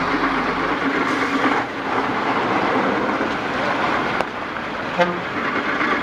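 Heavy truck and car traffic running on a wet road, a steady rumble with slushy tyre noise. A short horn toot sounds about five seconds in.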